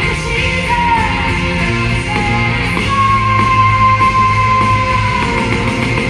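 Live rock music from a concert hall: a woman belting vocals over strummed acoustic guitar and a full band, with one long high note held from about halfway in.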